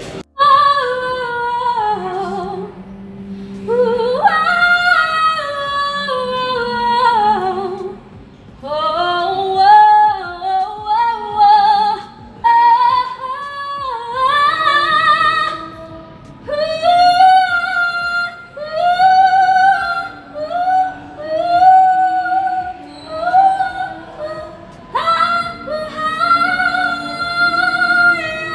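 A woman's solo voice singing unaccompanied, in slow phrases of held, wavering notes and quick runs, with short breaks between phrases.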